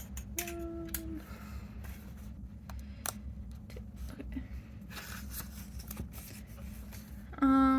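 Scrapbook paper and supplies being handled, with scattered light clicks and rustles over a steady low hum. Near the end comes a short, loud, steady-pitched tone, like a brief hum or call, and a fainter one sounds about half a second in.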